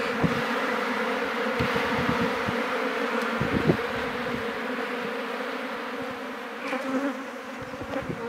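A mass of African honey bees buzzing steadily around an opened hive, a dense hum, with a single low knock about three and a half seconds in. The buzz gets a little quieter near the end.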